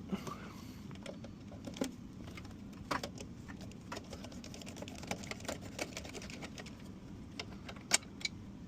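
Scattered clicks and light knocks of ice machine hoses and fittings being pulled off and handled, with a couple of sharper clicks near the end, over a low steady hum.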